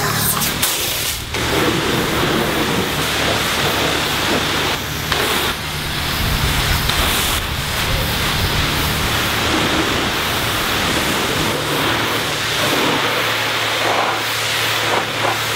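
High-pressure water from a car-wash pressure wand spraying onto a car's painted body panels: a loud, steady hiss of water, with a low hum underneath.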